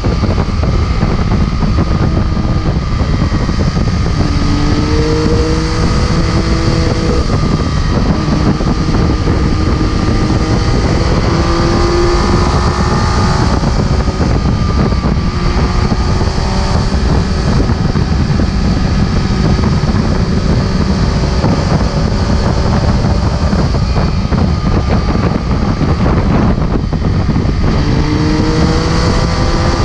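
MV Agusta F3 675's inline three-cylinder engine running under way, mixed with heavy wind noise on the bike-mounted microphone. The engine note rises in pitch as the bike accelerates, about five, twelve and twenty-nine seconds in.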